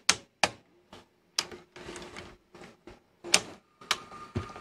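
National (Panasonic) VHS VCR's tape mechanism loading and threading a cassette: a series of sharp mechanical clicks and clacks with a short motor whir in the middle. Near the end a steady whine sets in as the tape starts to play.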